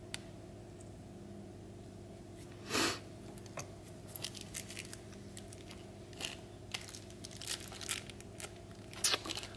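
Small parts being handled on a workbench: light scattered clicks and rustles, with one louder rustling scrape about three seconds in, over a steady low hum.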